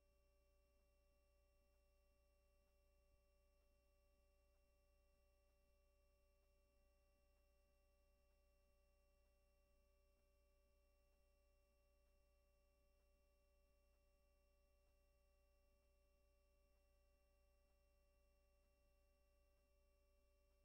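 Near silence: only a faint, steady electrical hum with a few thin constant tones, the noise floor of a silent track.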